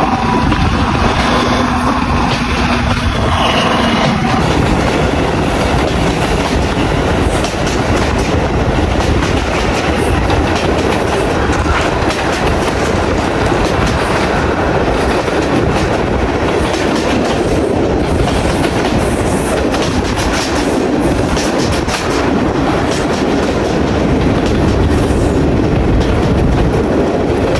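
A train running past on jointed track, its wheels clattering steadily over the rail joints, with a steady droning note in the first few seconds.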